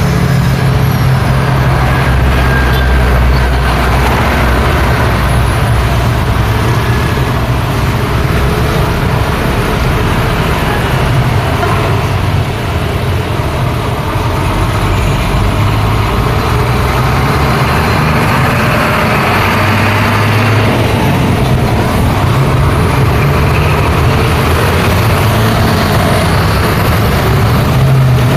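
Busy road traffic: trucks and cars driving past, with a steady wash of tyre noise and the deep running of heavy engines.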